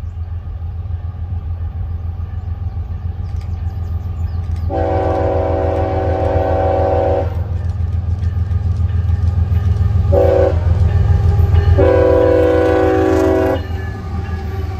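Diesel freight locomotive's air horn sounding a long blast, a short one, then another long one, over the low rumble of the approaching train, which grows louder as the locomotives pass.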